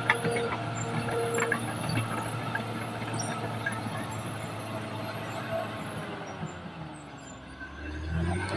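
Caterpillar D6R XL bulldozer's diesel engine running steadily at work, with a few sharp knocks in the first couple of seconds. Near the end the engine note sags, then climbs back up.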